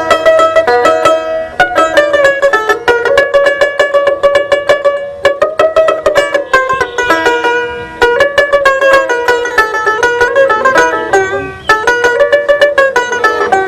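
Dotara, the long-necked Bengali folk lute, played solo: a fast run of plucked notes in repeated melodic phrases, with a bright, twangy tone.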